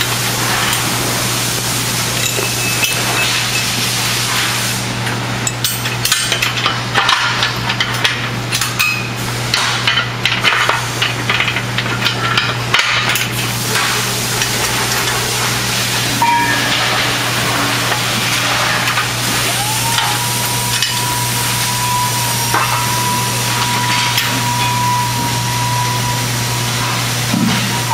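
Aluminium frame sections of a modular platform being handled and pinned together: a clatter of metal knocks and clicks, busiest in the first half, over a steady hum and hiss. A steady high whine comes in about two-thirds of the way through.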